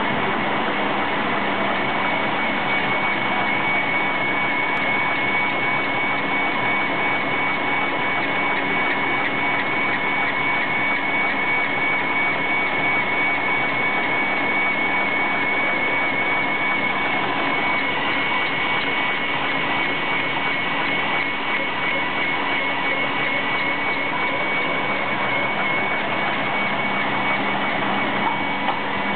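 Five-axis, three-head CNC brush drilling and tufting machine running, tufting bristles into brush blocks: a steady mechanical running noise with a high, even whine over it.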